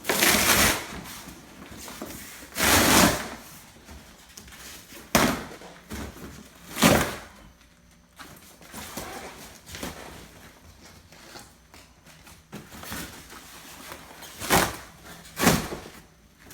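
A refrigerator's cardboard packaging being cut open with a box cutter and pulled apart: about half a dozen short, noisy rips with pauses of a second or more between them.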